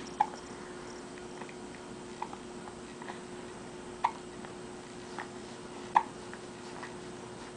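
Hiccups: four short, sharp hiccups, about two seconds apart, the second one weaker.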